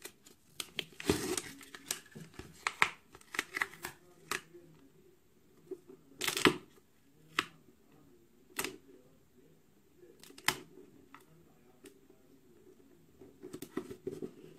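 Scattered rustles, scrapes and light knocks of an EVA foam craft sheet and a notebook being handled on a desk, then pressed down flat by hand. The loudest handling noises come about a second in and about six seconds in, with a flurry of small rustles near the end.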